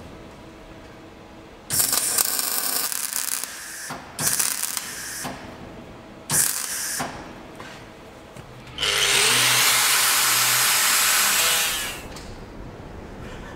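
MIG welder arcing as a steel patch panel is welded into a locomotive's cab nose: three short bursts of welding crackle, then a longer, louder, steady burst lasting about three seconds.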